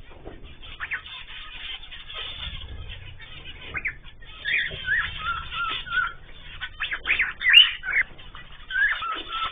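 Small cage birds, a mix of cockatiels, canaries and zebra finches, chirping and calling in short repeated notes. The calls get busier and louder about halfway through.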